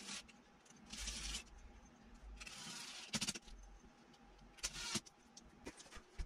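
Cordless drill-driver running in several short, faint bursts, driving Tapcon concrete screws through a steel mounting plate into masonry.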